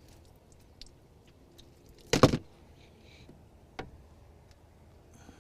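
Knocks and clicks of gear being handled in a fishing boat: a sharp double clunk about two seconds in, then a lighter click near the end.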